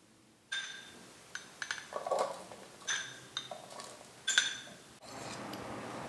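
A metal spoon clinking and scraping against a small ceramic bowl as canned tuna is spooned out into a larger ceramic bowl: a run of short ringing clinks, the loudest a little past four seconds in, with a duller knock around two seconds. From about five seconds in there is a steady faint hiss.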